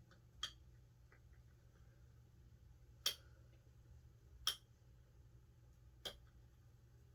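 Four sharp, separate clicks of a hand tool while a screw is worked into the Onewheel hub and tightened, over a faint steady low hum.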